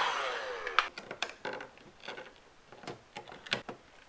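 Heat gun switched off, its fan whining down in pitch and fading over about the first second, followed by scattered light clicks and taps as a carbon fiber overlay is handled and set onto the car's fender.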